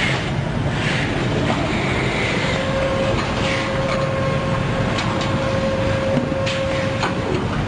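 Carton erector and bottom-sealing machine running: a steady mechanical clatter with scattered clicks and short hisses. A steady whine comes in about two and a half seconds in and stops about seven seconds in.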